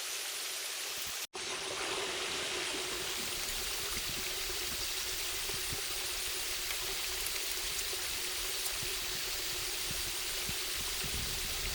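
Small stream flowing and trickling steadily, with a sudden brief dropout about a second in.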